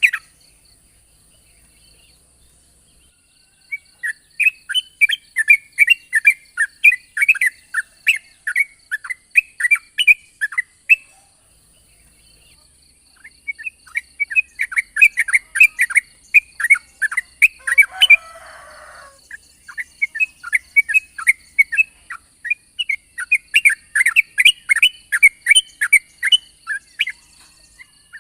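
Yellow-vented bulbul singing long runs of rapid, bright chattering notes. There are three runs, each several seconds long, with short pauses between them.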